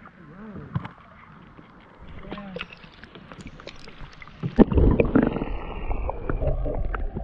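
River water heard from a camera held under the surface: muffled gurgling and low rumbling. About four and a half seconds in comes a sudden, louder rush of churning water.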